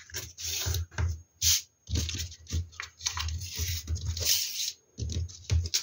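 Cardstock being folded along its edges and creased and slid by hand on a table: irregular bursts of paper rubbing and rustling.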